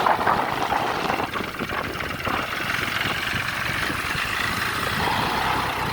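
John Deere 5055 tractor's diesel engine running steadily.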